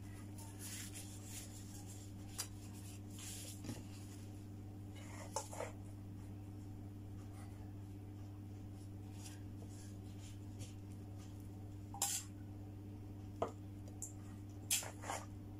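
Gloved hands handling thin spring-roll wrappers, giving soft rubbing and rustling, with a few light scrapes and clinks of a spoon in a stainless steel colander of lumpia filling. A steady low hum runs underneath.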